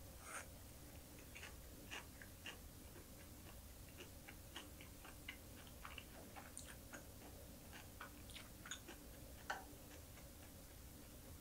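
Faint close-up chewing of small anchovies and green chili peppers: scattered soft crunches and wet mouth clicks at an uneven pace, with a few sharper clicks, the loudest near the end.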